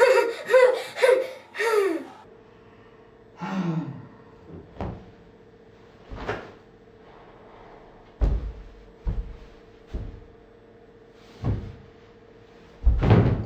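A child's voice in a quick run of short, rhythmic, high cries that stops about two seconds in, then a single falling vocal sound. After it come about seven dull thumps at uneven intervals, the last one the loudest, over a faint steady hum.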